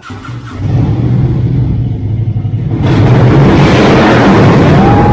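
Motorcycle engine rumbling, then revved hard and much louder from about three seconds in. A short high whistle sounds near the end.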